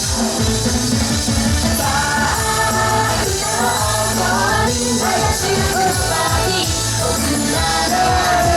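Loud YOSAKOI dance music over a sound system: a pop-style track with a steady beat, a sung melody line coming in about two seconds in.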